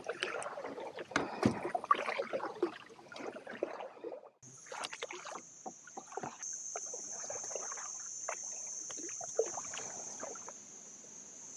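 Kayak paddle strokes: the blades splashing and dripping water, with a few sharp knocks of the paddle. After about four seconds a steady, high-pitched insect drone comes in and grows louder, under the continuing light splashes.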